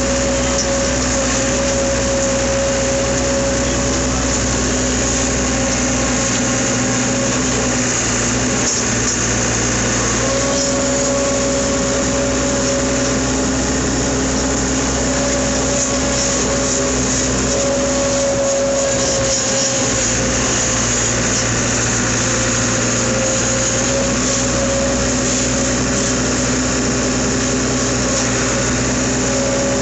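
Semi truck's engine and road noise while driving, a loud steady drone with a held tone over it.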